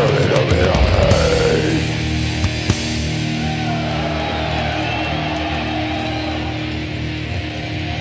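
Live heavy metal band playing loud distorted electric guitars with drums, with a downward pitch slide in the first two seconds. It then settles into held, ringing guitar notes over a low drone.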